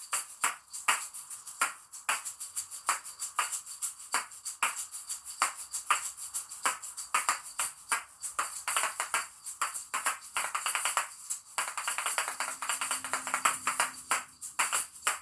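Patica Neo asalato, a pair of small 47 mm plastic shaker balls on a string, played in a fast, steady rhythm: rattling shakes mixed with sharp clacks of the two balls striking each other.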